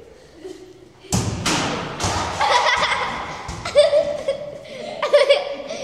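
A loud thump about a second in as a RipStik caster board and its rider come down on a hard hallway floor, followed by continued clatter and raised voices.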